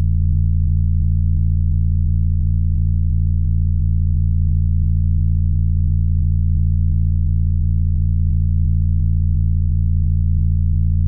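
No-input mixer feedback: a loud, steady low hum held on one pitch, with a stack of fainter overtones above it.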